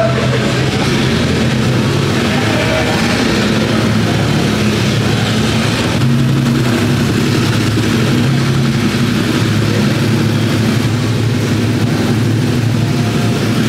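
Several car engines running at low revs, a steady low rumble as cars idle and roll in.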